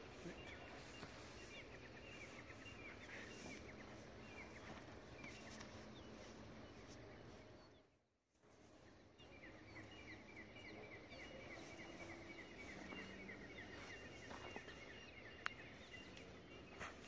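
Faint outdoor background noise with a bird chirping in long runs of short, evenly spaced falling notes, about three a second. The sound drops out briefly about eight seconds in.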